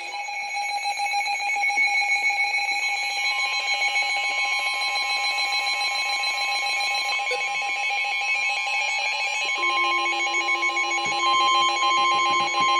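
NOAA Weather Radio alert alarm sounding for a winter storm warning: a rapidly pulsing electronic alarm, joined about three seconds in by a steady warning tone that grows louder near the end.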